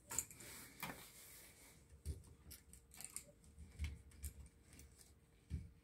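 Faint, scattered clicks and short scrapes of a screwdriver working a terminal screw on a 20 A receptacle, with the wire and gloved hands rubbing against it.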